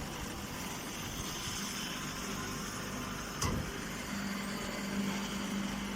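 Hay baler machine running steadily, with a single sharp knock about three and a half seconds in and a low steady hum joining about a second later.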